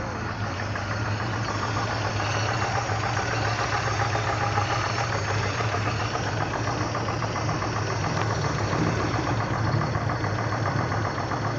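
Peugeot 505 Gamma engine running steadily at low revs, being listened to for a suspected 'taca taca' knock or strange noise that the owner has not yet pinned down.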